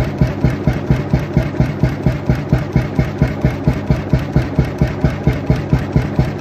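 Krimo single-cylinder 21.9-litre hot-bulb oil engine running steadily, each firing a heavy, even beat, about three a second.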